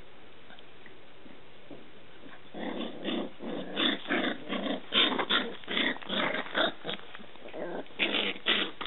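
Scottish terriers barking: a rapid string of short, sharp barks, several a second, starting about two and a half seconds in, with a short break before a last few barks near the end.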